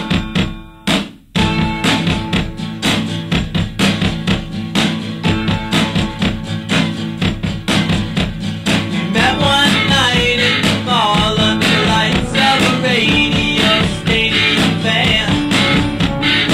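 A song with guitar and drums. Separate drum hits open it, the full band comes in about a second in, and a voice starts singing from about nine seconds in.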